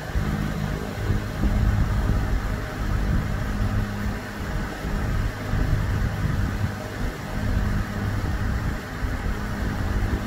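A steady low machine hum that swells and dips a little in loudness.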